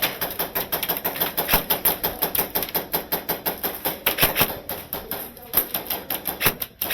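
Airsoft guns firing, a fast, irregular run of sharp clicks several times a second, with pauses of about half a second between strings of shots.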